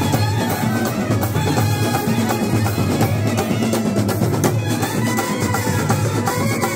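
Kerala band set playing loudly: a row of bass drums and snare drums beating a fast, dense rhythm under a melody held by wind instruments.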